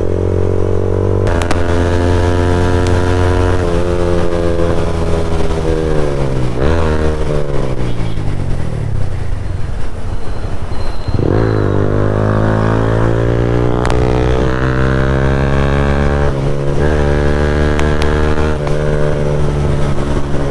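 Yamaha MT-15's single-cylinder engine heard from on board while riding. Its pitch rises and falls with the throttle: it sinks as the bike eases off, drops suddenly about eleven seconds in, then revs back up and holds a steady high note.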